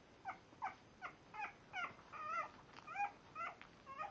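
Five-week-old French Bulldog puppies crying: a string of about ten short, high cries, roughly two or three a second, most dropping in pitch, with one longer, wavering cry about halfway through.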